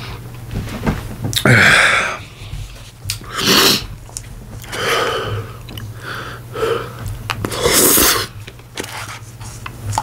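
A person's sharp, noisy breaths and sniffs, about five of them a second or two apart, while eating ice cream.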